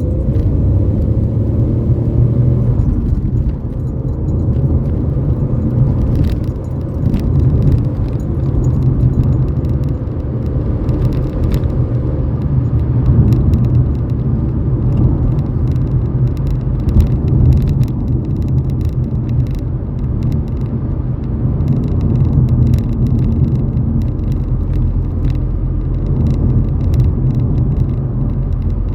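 Ford Fiesta EcoBoost car's engine and exhaust running steadily, a deep low sound with small swells in level. A rising engine note levels off in the first few seconds. Light rattles and ticks sound throughout.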